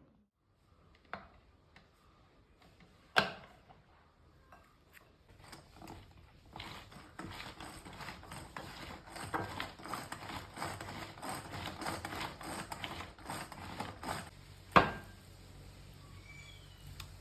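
Kitchen handling sounds: a couple of sharp knocks, then several seconds of fast, dense tapping and scraping, and one more loud knock near the end.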